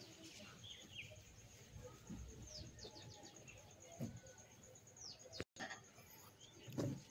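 Faint outdoor ambience with small birds chirping: short high chirps, some in quick runs of three or four, over a thin steady high hiss, with a few soft low knocks and a brief dropout about five and a half seconds in.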